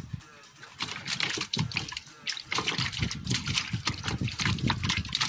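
Water splashing, streaming and dripping as a wet gill net is hauled out of the water into a small boat, picking up about a second in.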